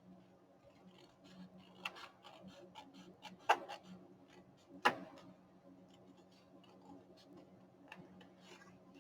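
Small scissors cutting paper: a run of light snips and clicks, with two sharper snips around the middle.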